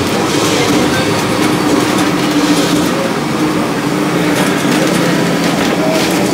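Vintage wooden tramcar of Lisbon's tram 28 running along its street rails, heard from inside the car: a steady rumble and rattle of wheels and body, with a steady low tone running through it.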